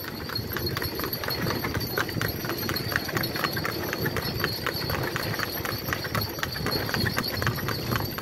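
A horse pulling a cart clip-clops steadily along a paved road, its hoof strikes coming in a quick, even rhythm over a low rumble.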